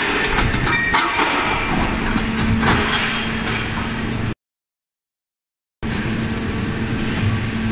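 Q91-1250 heavy-duty hydraulic scrap shear running, its press lid bearing down on sheet-metal scrap. A steady hydraulic hum runs under dense crunching and creaking of the scrap. The sound cuts out completely for about a second and a half a little over four seconds in, then the hum resumes.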